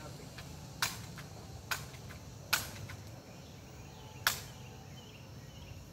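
Four sharp snaps from a pump BB gun being shot and worked, the last two with a short ring after them, over a steady faint background hum.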